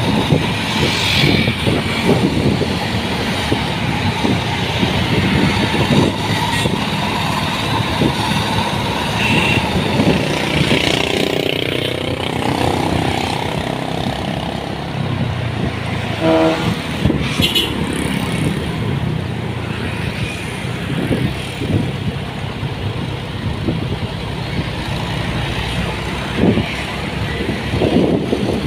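Steady heavy-vehicle engine and road noise, with a short horn toot about halfway through.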